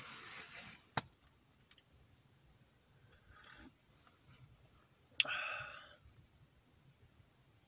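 Quiet handling sounds: a paperback book page turned with a short papery rustle, a sharp click about a second in, then sipping from a steel camp mug, with another sharp click and a brief rustle about five seconds in.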